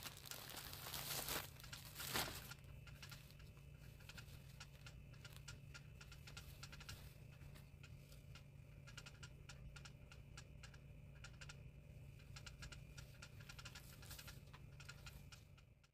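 Packaging and fabric being handled during an unboxing: a couple of loud rustles as the package is torn and opened in the first two seconds, then soft steady crinkling with many small clicks.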